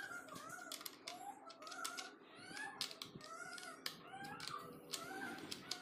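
A metal spanner clicks against a nut and bolt as the nut is tightened, in sharp irregular clicks. Behind it a bird chirps over and over, about two short rising-and-falling chirps a second.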